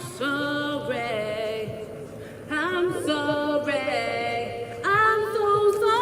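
A voice singing a slow melody in long, held notes that glide from one pitch to the next.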